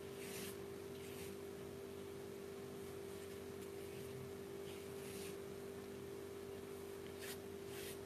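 Faint swishes of a large paintbrush dragging black paint across paper, a few strokes spread through, over a steady low hum.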